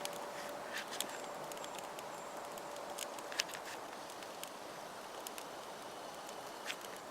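Small wood and birch-bark fire crackling inside a Swiss army Volcano stove: a steady hiss with scattered sharp pops.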